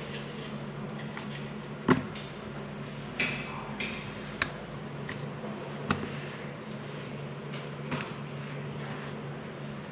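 A plastic circle template and paper handled on a tabletop: about six light knocks and rustles, the sharpest about two seconds in, over a steady low hum.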